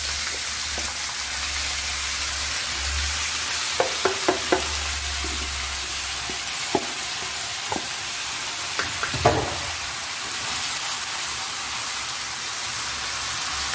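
Freshly added diced raw potatoes frying in hot oil in a non-stick frying pan, an even sizzle as they are stirred with a wooden spoon. A few light knocks against the pan, two small clusters about four and nine seconds in.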